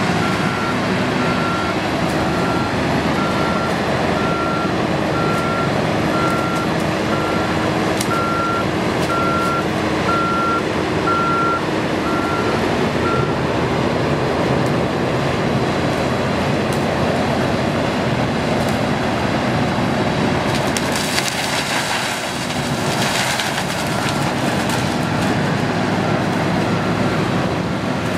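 Sugarcane harvester's engine and cutting machinery running steadily and loud. A reversing alarm beeps about once a second and stops about halfway through. About three quarters through there are a few seconds of hissing bursts.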